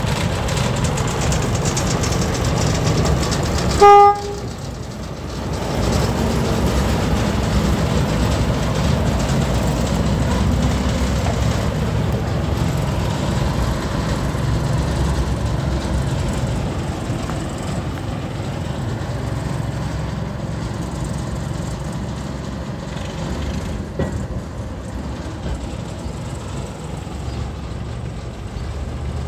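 Small diesel shunting locomotive running as it moves along the track, with one short horn toot about four seconds in, the loudest sound; the engine rumble goes on after it and eases a little in the second half.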